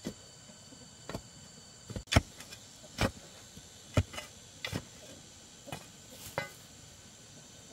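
About a dozen sharp knocks of hard objects at uneven intervals, the loudest about two seconds in, over a faint steady high-pitched hum.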